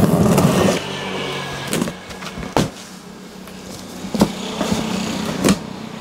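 Packing tape on a cardboard carton being slit with a cutter and pulled open, a loud ripping scrape at the start, then cardboard flaps being pulled back with rustling and a few sharp knocks.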